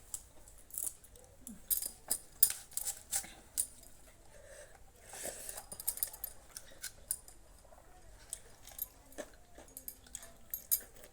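A meal being eaten: scattered light clicks and clinks of the dishes, in clusters, with some crunching.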